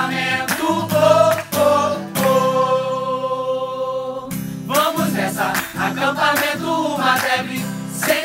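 A group of voices singing a Christian worship song over acoustic guitar, holding one long note near the middle.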